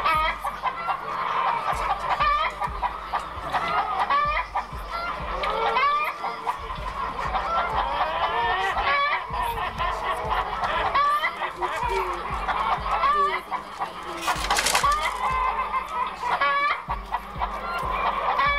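Chickens clucking, many short calls one after another over a steady low hum, with a brief harsher sound about fourteen seconds in.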